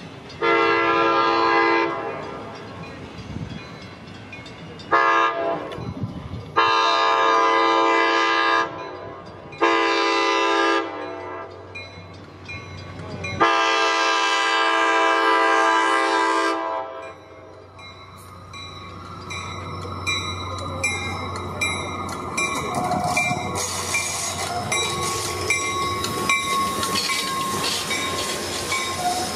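ACE commuter train's chord air horn sounding five blasts, long, short, long, short and a final long one of about three seconds. Then the train's bilevel cars roll past with clattering wheels.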